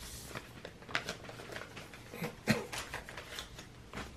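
Irregular clicks, taps and light rustles of things being handled, with the loudest knock about two and a half seconds in.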